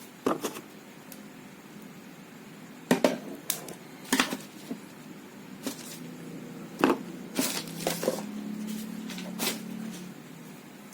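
Irregular clicks and knocks of a plastic power strip being handled and plugged into, a dozen or so sharp separate sounds, with a faint low hum in the second half.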